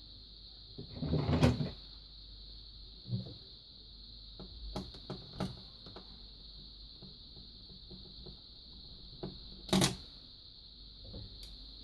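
Hands swapping a TV's control button board: clicks, light knocks and a brief scraping clatter about a second in, with one sharp knock near the end, over a steady high-pitched whine.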